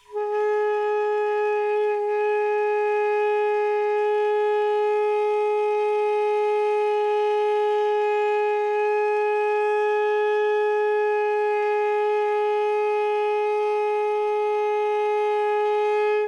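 Alto saxophone holding one steady long tone for about sixteen seconds, played with gentle, even air, then stopping just before the end.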